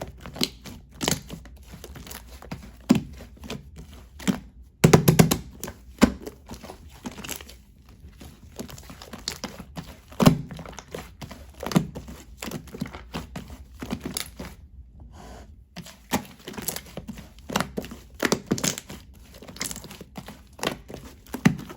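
Hands handling crinkly wrapping material, with scattered short taps and thunks on a hard surface and a louder cluster of knocks about five seconds in.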